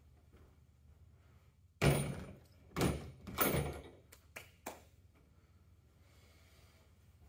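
A heavy, partly stripped GY6 scooter engine with its transmission case set down on a table: a loud thunk, then two more thuds as it is shifted into place, followed by two light clicks.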